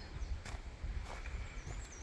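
Footsteps of a hiker on a rocky woodland trail, two steps about half a second apart, over a low rumble. Near the end a small bird starts singing a quick run of high, wavering notes.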